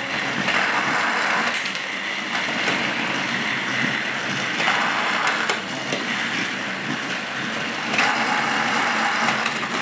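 Motorised Thomas & Friends TrackMaster toy trains running on plastic track, a steady rattling run, with a few sharp clicks of plastic toys knocking together.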